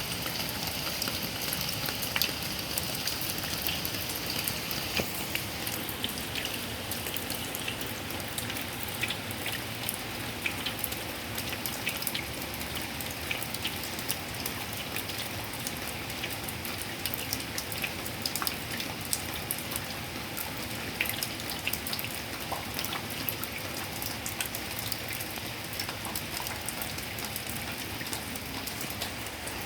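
Heavy rain pouring steadily, a dense patter of individual drops hitting over a constant hiss.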